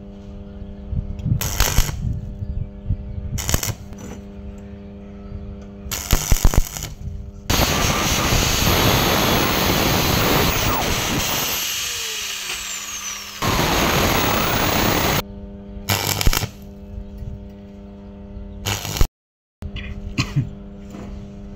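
Angle grinder cutting metal for about six seconds, slowly fading, then a shorter loud stretch of grinding that stops abruptly. Before and after, a few sharp metal clanks and taps as steel parts are handled, over a steady hum.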